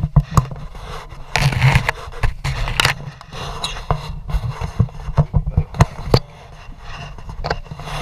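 Handling noise: cloth scraping and rubbing over the camera's microphone as it is carried against a coat, with scattered knocks and a few louder rustling bursts, over a low steady hum.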